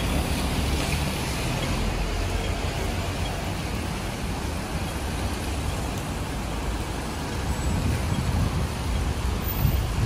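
Road traffic on a wet street: cars and a van driving past, their tyres hissing on the wet road over a steady low rumble that grows a little louder near the end.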